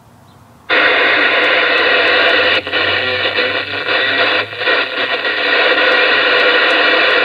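Moonraker CB radio's speaker switching on to a loud, steady hiss of static less than a second in, with brief dips as the channel buttons are stepped down through the channels.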